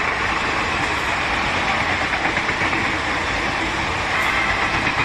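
Passenger train coaches running past at speed, a steady noise of wheels on rails with no letting up.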